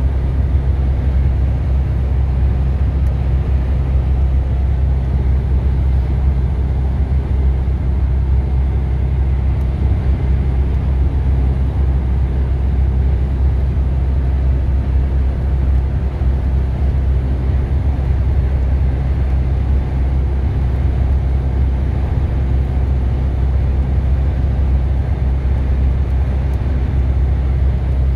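Steady low rumble of engine and road noise inside a large vehicle's cabin at motorway speed.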